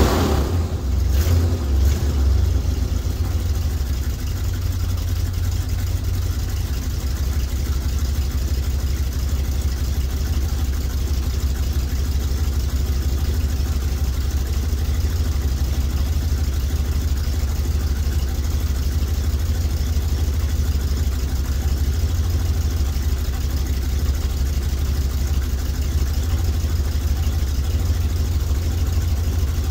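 1986 Chevrolet G30 motorhome engine idling steadily just after a cold start, a low, even rumble. In the first couple of seconds the engine speed is still settling before it holds a steady idle.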